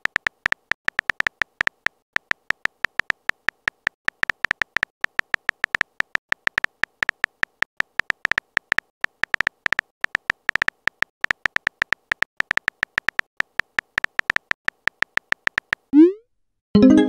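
Texting-app keyboard sound effect: a rapid, uneven run of short beeping clicks, several a second, as a message is typed out letter by letter. Near the end comes a quick rising swoosh as the message is sent.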